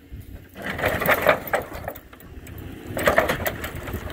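Wrecked camper trailer being dragged by chains over the ground, its walls and wooden framing crunching and scraping, over a low engine rumble. The crunching starts about half a second in, drops off around two seconds, and picks up again about three seconds in.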